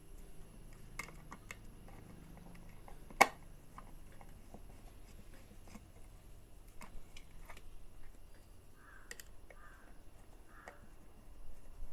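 Scattered clicks and taps from a small plastic-cased voltage control unit being opened up and handled, with one sharp knock about three seconds in.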